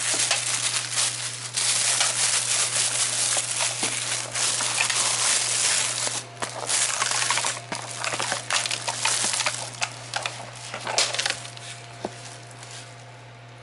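Thin plastic carrier bag crinkling and rustling as hands pull a paper takeout lunch box out of it, easing off after about eleven seconds. A steady low hum runs underneath.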